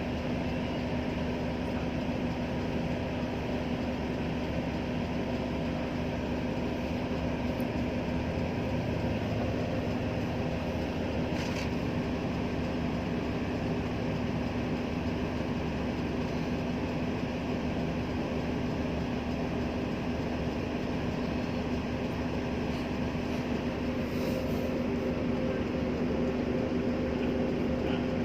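A vehicle's engine running at a steady speed, heard from on board as a constant droning hum with road or rail noise beneath it.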